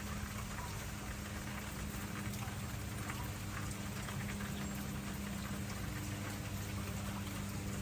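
Heavy hurricane rain: a steady hiss with many small drop patters, over a steady low hum.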